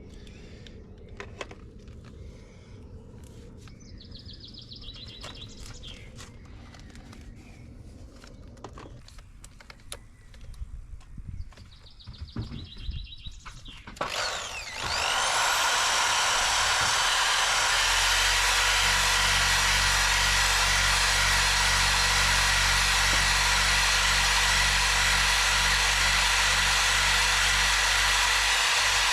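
Scattered light clicks and knocks, then about halfway through a power tool switches on with a short rising whine and runs steadily and loudly, a continuous whirring noise with a low hum under it.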